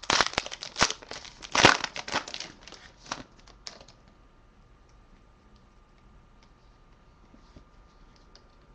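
A trading-card pack wrapper being torn open and crinkled by hand: a run of crackling rips over the first three seconds or so, loudest about a second and a half in. After that, only faint scattered clicks.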